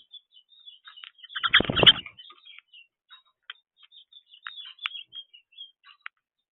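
Small birds chirping, with many short, quick chirps and twitters. About a second and a half in there is a louder, brief rustling thump.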